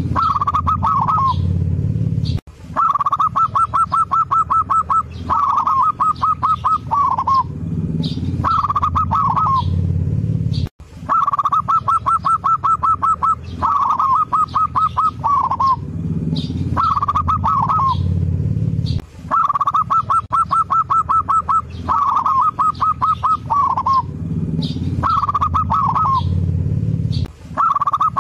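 Zebra dove (perkutut) song: phrases of rapid, even staccato coo notes, each ending in a few wavering, falling notes, repeated over and over. The recording loops roughly every 8 seconds, as a lure track played to prompt a reluctant caged perkutut to sing.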